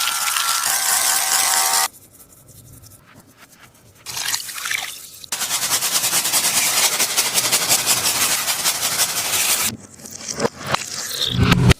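A taba squishy, a ball of sticky tape, being squeezed and pulled, giving long stretches of dense sticky crackling with a quieter gap of about two seconds after the first. A loud bump comes just before the end.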